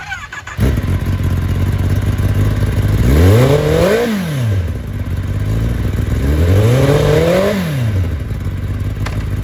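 2023 Kawasaki Ninja ZX-10R's inline-four engine, fitted with a Yoshimura Alpha aftermarket exhaust, starts up about half a second in and idles. The rider then revs it twice, each time rising over about a second and dropping back to idle.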